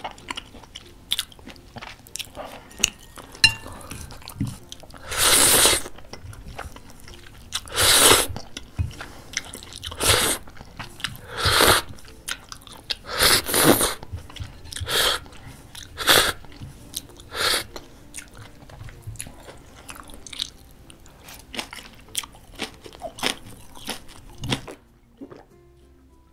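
Close-miked eating of jjapaguri, instant black-bean-sauce noodles: about nine loud slurps of noodles, each roughly half a second, with wet chewing and small clicks between them. It stops near the end.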